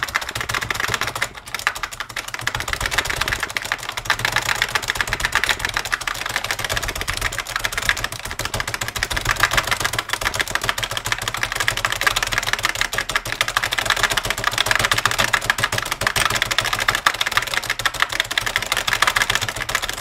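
Computer keyboard keys hammered in a fast, continuous clatter of clicks, with a brief pause about a second and a half in.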